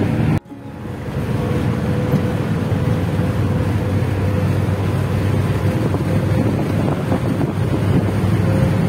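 Moving bus heard from inside: a steady, loud rumble of engine and road noise with wind rushing past. The sound cuts out sharply about half a second in, then builds back up and holds steady.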